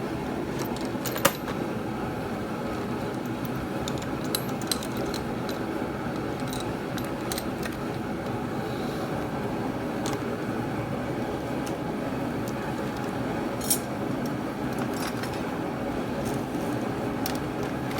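Light metallic clinks and clicks of sockets and tools being handled in a toolbox drawer over a steady background hum. The sharpest click comes about a second in, with a few more scattered through.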